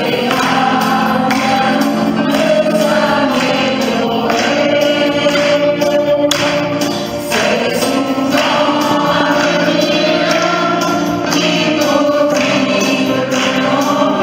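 Mixed choir of women and men singing a song together in a church, the voices running on continuously with a short dip about seven seconds in.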